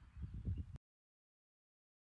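A few low, dull thumps in the fading wake of a shotgun shot. The sound then cuts off abruptly to dead silence less than a second in.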